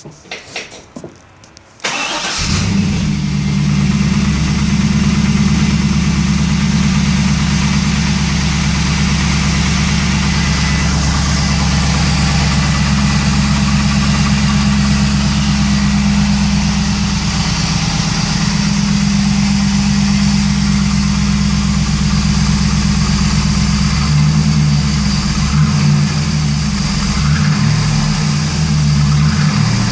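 2001 Pontiac Trans Am WS6's 5.7-litre LS1 V8 starting about two seconds in and then idling, its low note becoming less even in the last few seconds. It idles with the engine noise the owner cannot place, which he suspects is piston slap, a bent pushrod or lifter tick.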